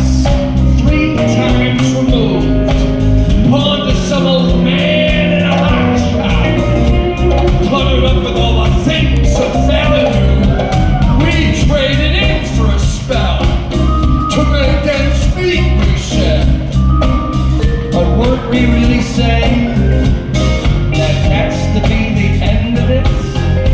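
Live band playing loudly, with a steady drum beat, heavy bass and melodic lines over the top.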